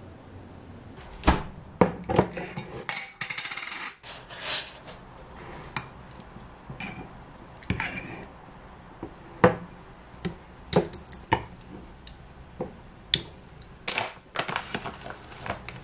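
Kitchenware handling: clinks and soft knocks of a wooden spoon scooping thick Greek yogurt from a glass jar into a ceramic bowl, with the jar's metal lid handled and set down. Near the end, a quick run of rustles as a plastic bag of black sesame powder is opened.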